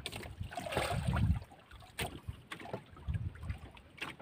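Faint handling noise and low bumps aboard a small outrigger fishing boat while a fish is worked off a sabiki rig's hook, with one sharp click about two seconds in.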